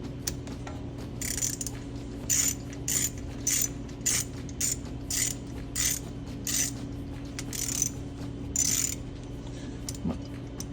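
Hand socket ratchet clicking through about a dozen even back-strokes, a bit under two a second, as a bolt is run in on a car's rear brake caliper. A steady low hum runs underneath.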